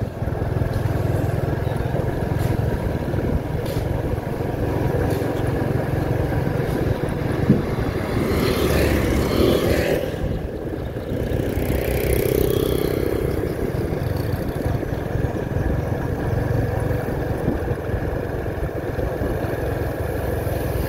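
Motorbike engine running steadily while riding, with wind and road noise on the microphone. It grows louder for a few seconds about halfway through.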